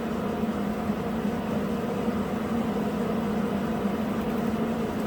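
A steady mechanical hum with a faint hiss: the constant background drone of a repair shop, not the RAV4's engine, which is switched off.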